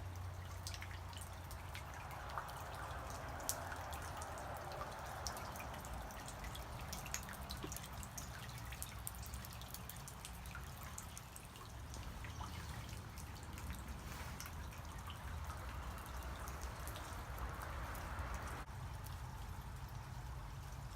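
Water dripping: many small drops fall at irregular moments over a soft trickle of running water.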